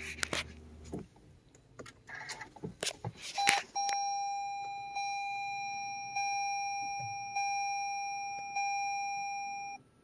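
Toyota RAV4 Prime's dashboard warning chime sounding as the car is powered on: a steady high tone, re-struck about every 1.2 seconds for about six seconds, then cutting off. A few clicks and knocks come just before it.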